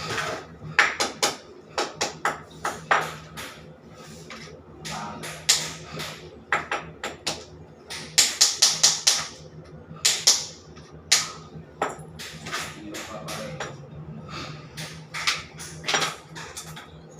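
Irregular sharp clicks and knocks over a steady low hum, with a quick run of several knocks about eight seconds in.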